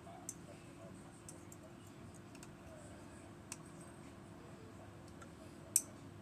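Lever lock being picked: a few faint metallic clicks and ticks from the pick and tension tool working against the levers inside the lock, with one sharper click near the end.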